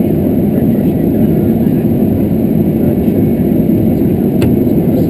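Aircraft engine running at idle, heard inside the cockpit as a loud, steady, low noise that does not change.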